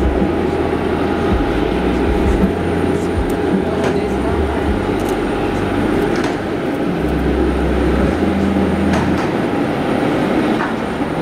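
Boeing 747-8F freighter's four GEnx turbofan engines running as the jumbo taxis: a steady, loud jet rumble with a faint whine.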